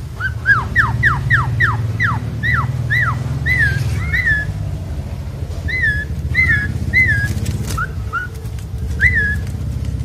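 Asian pied starling (jalak suren) singing loudly: a quick run of about a dozen downward-sliding whistles, then spaced, arched whistled notes that rise and fall, over a steady low rumble.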